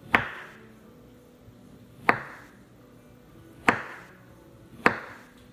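A kitchen knife cutting down through a soft meat dog treat roll and striking a wooden cutting board: four sharp knocks, one to two seconds apart, each trailing off briefly.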